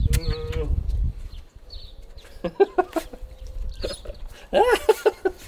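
A small dog whining excitedly in greeting, in a run of short cries about halfway through and a longer rising-and-falling whine near the end.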